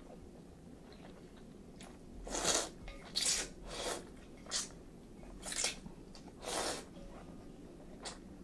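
Chilled ramen noodles slurped and chewed close to the microphone: about half a dozen short wet slurps with pauses between them.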